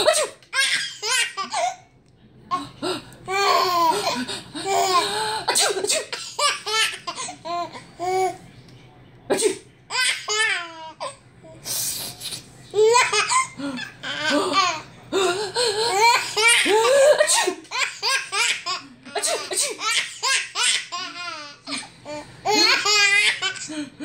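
Infant laughing in repeated fits of belly laughter at an adult's fake sneezes, with a few short, sharp sneeze bursts in between.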